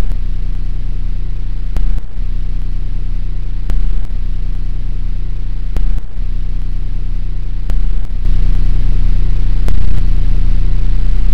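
Steady low hum and hiss, like the worn soundtrack of old film, with a short click or pop about every two seconds.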